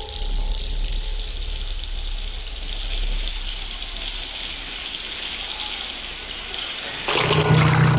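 Shower running: a steady spray of water just after the valve is turned on. About seven seconds in, a louder sound with a low steady drone cuts in over it.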